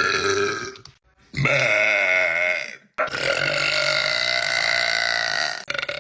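A woman burping three times in quick succession: the end of one burp, then a burp of about a second and a half, then a long drawn-out burp lasting nearly three seconds.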